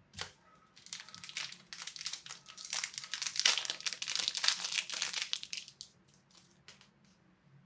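Plastic packaging crinkling and crackling as it is handled and unwrapped. It starts about a second in, is loudest in the middle, and thins out to a few last crackles near the end.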